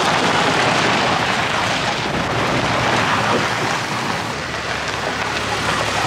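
Ford pickup with a truck camper driving by on a gravel road: a steady wash of tyre noise crunching over gravel, with the engine's low hum underneath.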